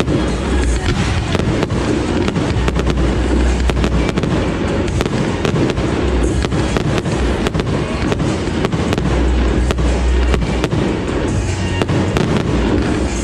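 Aerial fireworks display: dense crackling and rapid pops, with deep booms from shell bursts swelling a few times.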